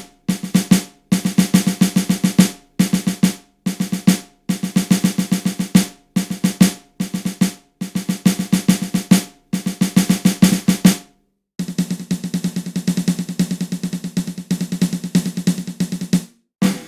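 Snare drum build-up: short runs of rapid strokes broken by brief gaps, then an unbroken roll in the second half that cuts off suddenly, with a new roll starting just before the end.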